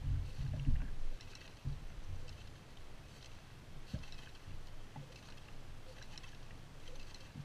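Small waves lapping and slapping against a kayak hull, a light splash about once a second. Wind buffets the microphone with a low rumble during the first second, and there are a few soft knocks of line and gear being handled.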